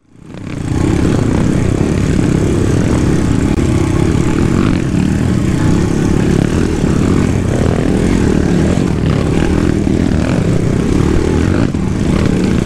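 Kawasaki KLX dirt bike's single-cylinder four-stroke engine running steadily under way, fading in within the first second.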